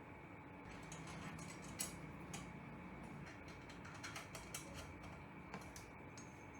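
Faint, irregular clicks and light taps of small hardware being handled during assembly, over a steady faint hum.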